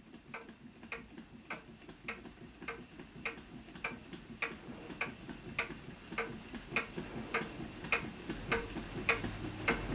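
Water-cooled Stirling engine running slowly, giving an even mechanical click just under twice a second that grows gradually louder. A low rumble joins in near the end.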